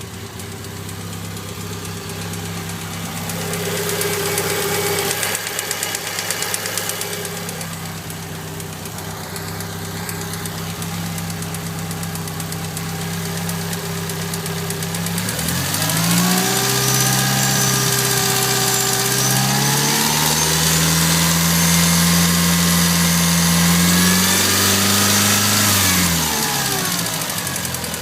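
Mitsubishi Lancer Evolution IX's turbocharged 4G63 inline-four idling with a tapping, ticking noise, revved up about halfway through, held higher, then dropping back to idle near the end. The owner is unsure whether the tap is rod knock or lifter tap.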